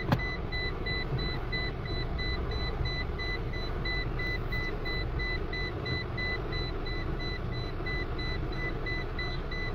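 Inside a car: a low, steady engine and road rumble with a rapid, evenly pulsed electronic beeping throughout, like a car's parking-sensor proximity warning while the car is close to a bus. A sharp click sounds just at the start.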